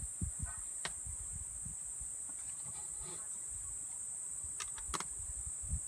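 Steady high-pitched drone of insects in dry bush, with scattered low thumps and a few sharp clicks, two close together near the end.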